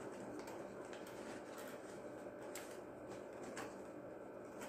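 Faint rustling of stiff paper as hands adjust the pleated paper frills of a paper doll, with a few light crinkle ticks over a steady low hiss.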